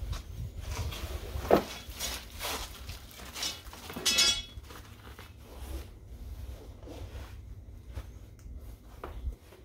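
Folding frame of a Wonderfold W4 Elite stroller wagon being pulled open by hand: a series of clicks and knocks, the sharpest about one and a half seconds in, and a brief rattle around four seconds in.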